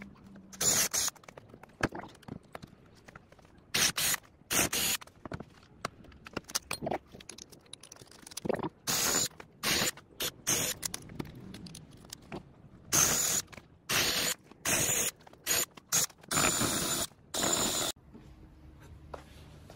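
Cordless DeWalt drill boring into a wooden board in about twenty short trigger bursts, each with a high motor whine and the bit chewing through wood. The bursts come in clusters as the hole is widened step by step with a larger bit.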